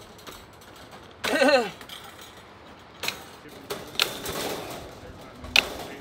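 Sharp metal clicks and snaps, four of them spread through the second half, from steel wire mesh being cut with bolt cutters and worked into place over the rebar. A brief voice sounds about a second in.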